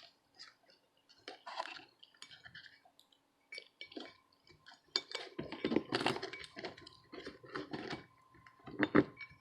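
Small metal tools and parts clinking and tapping in irregular clicks while a USB connector is handled and fitted onto a circuit board. The clatter is busiest about five to seven seconds in, with a sharper knock near the end.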